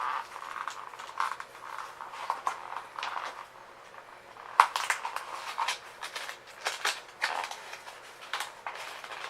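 Toy packaging being worked open by hand: irregular rustling and crackling with sharp clicks, the loudest snap about four and a half seconds in.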